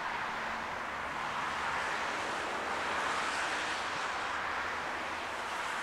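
Jet engines of a Eurowings Airbus A320-family airliner on the runway: a steady, broad rushing noise that swells gently and eases again.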